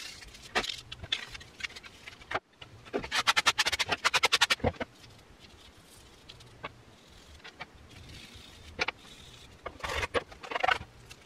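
Small parts of a power tool being handled, with scattered clicks and clatter. About three seconds in comes a quick rattling run of clicks, about a dozen a second, lasting under two seconds, and a few more clicks come near the end.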